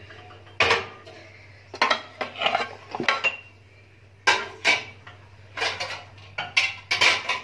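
Clean metal pots, pans and plastic food containers clattering as they are picked up, stacked and set down, in several short bursts of knocks and clinks.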